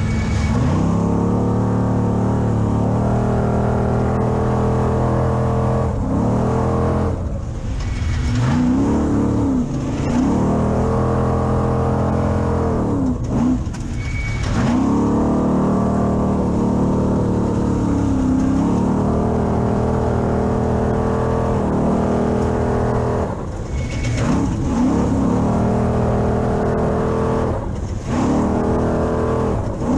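6100 Spec Trophy Truck's engine running hard at race pace, its pitch rising and falling with the throttle, with brief dips every few seconds as the driver lifts or shifts.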